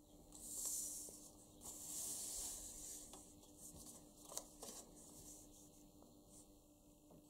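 Paper cutouts rubbing and sliding on a wooden tabletop under fingertips, in two short rustling strokes near the start, with a single light tap about halfway through.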